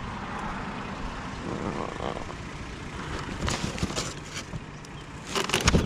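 A vehicle engine idling steadily under a scatter of clicks and knocks, with a louder burst of clatter near the end.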